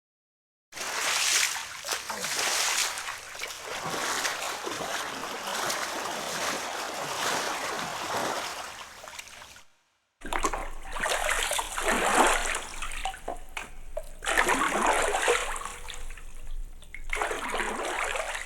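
Falling water splashing, a dense hiss that swells and ebbs in surges. It starts within the first second, breaks off into silence for about half a second near the middle, then comes back.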